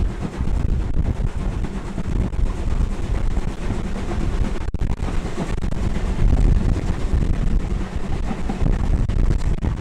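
Heavy wind buffeting on a microphone held out of the window of a moving steam-hauled train, over the train's running noise.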